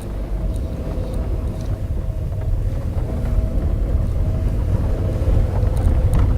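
VW Polo Sedan heard from inside the cabin while driving over rough road: steady low road and tyre rumble with a faint steady tone, and a few light clicks and rattles. The owner suspects a creaking rubber-and-plastic automatic gearbox mount.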